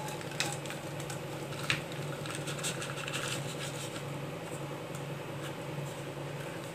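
Grated jaggery tipped from a plastic bowl into a pan of water, the granules falling with soft pattering and a few light taps, over a steady low hum.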